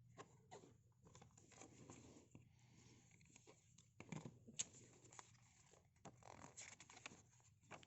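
Faint handling of the iPad's retail packaging: paper and plastic rustling and tearing with irregular light clicks and taps, a few sharper ones about four and a half seconds in.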